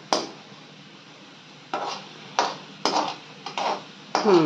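Metal spoon knocking and scraping against a kadhai as poha is stirred: about seven uneven strokes, the loudest near the end.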